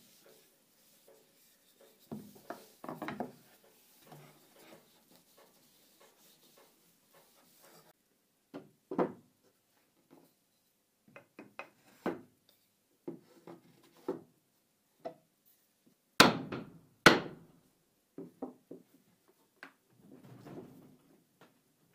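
Wooden holdfasts of oak and maple knocked and set into the dog holes of a wooden workbench: scattered wood-on-wood knocks and clunks. The loudest are two sharp knocks about a second apart some two-thirds of the way through, as the holdfasts are struck to lock them down on the workpiece.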